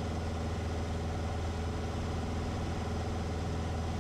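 Cessna 150's four-cylinder Continental O-200 engine and propeller droning steadily at pattern power in flight.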